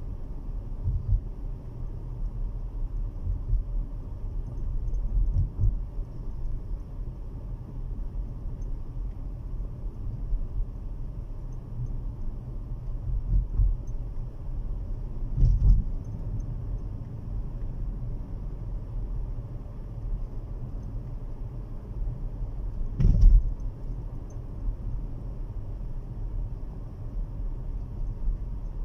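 Low rumble of a moving car heard from inside its cabin, road and engine noise steady throughout. Two heavier thumps stand out, one about halfway through and another about eight seconds later.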